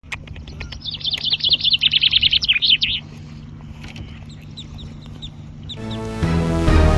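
A bird chirping: a fast run of many short high notes for about two seconds, then a few scattered single chirps. Music with sustained notes comes in near the end.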